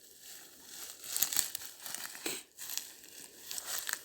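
Thick, soft layer of dry pine-needle litter crackling and rustling in irregular bursts as it is stepped on.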